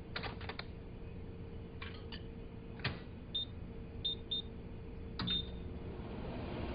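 Microwave oven controls being worked: a few sharp clicks, then four short high beeps from the keypad as it is set. A low hum runs under them, and a hiss rises near the end as the oven starts running.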